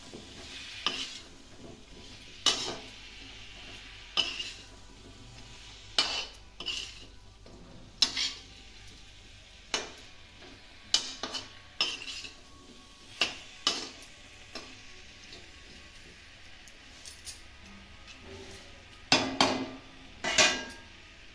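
A metal spoon scraping and knocking against a kadhai as diced potatoes are stirred and sautéed in spice masala, about one sharp stroke every second or two with a lull before two loud strokes near the end. A faint sizzle of frying runs underneath.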